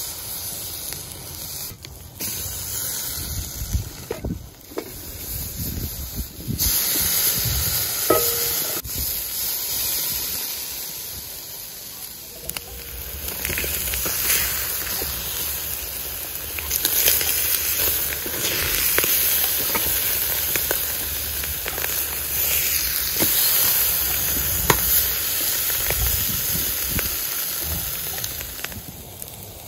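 Marinated chicken pieces sizzling on a charcoal grill grate over hot coals, with scattered crackles and pops through the hiss.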